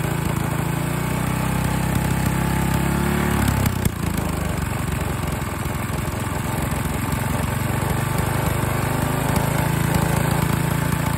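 Tecumseh Snow King single-cylinder four-stroke snowblower engine running at high speed while about 2 ml of liquid gallium is pulled through its carburetor, without stalling. Its speed climbs over the first few seconds, dips briefly with a short knock about four seconds in, then picks up and holds steady.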